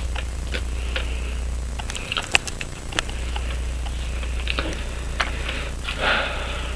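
Small sharp clicks and taps of watchmaker's tools on a wristwatch movement, the loudest about two seconds in, over a steady low hum. A short sniff comes near the end.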